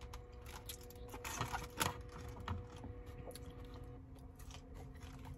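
Quiet close-up eating sounds: a mouthful of po' boy sandwich being chewed, with scattered soft clicks and rustles as food is handled on a foil-lined tray.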